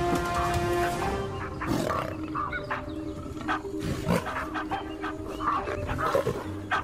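Baboons and a leopard in a confrontation, giving several separate harsh calls, barks and snarls, about two, four and six seconds in. The calls sit over background music with long held notes.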